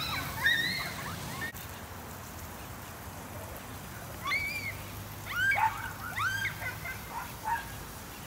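Children's high-pitched squeals and shrieks: short rising-and-falling cries in two bursts, the second lasting about three seconds, over a steady hiss of water spray.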